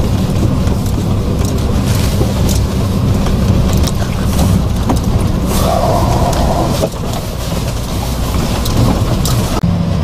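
Hyundai Porter 4WD truck driving slowly on a gravel road: steady engine and road rumble, with frequent short clicks and knocks from the tyres rolling over gravel and potholes.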